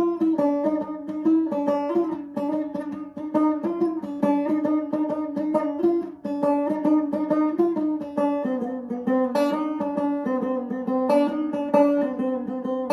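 Banjo played solo: a steady stream of quick plucked notes over a ringing drone note that sounds throughout, a free improvised style rather than bluegrass picking.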